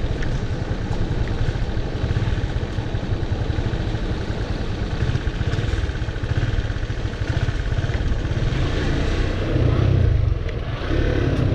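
Motorcycle engine running steadily under way, with a dense low rumble throughout and a brief swell in level near the end.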